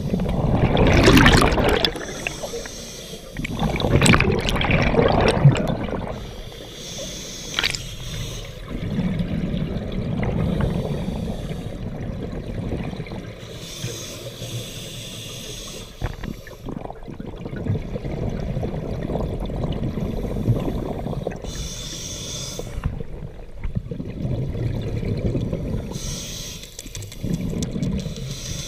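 Scuba diver breathing through a regulator underwater: hissing inhalations and bubbling exhalations repeating every few seconds, loudest in the first few seconds.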